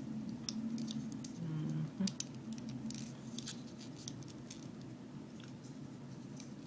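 Small snap-fit plastic model-kit parts being handled and fitted together: a scatter of light plastic clicks and taps over a low steady hum.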